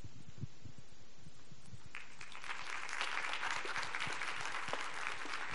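Audience applauding in a hall, starting about two seconds in and carrying on.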